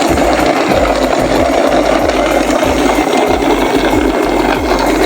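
Toy truck's small electric motor and gears whirring steadily as it drives, over background music with a regular low beat.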